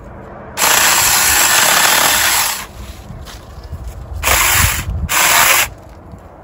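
Saker 20-volt battery mini chainsaw running and cutting through small branches: one run of about two seconds starting about half a second in, then two short bursts near the end.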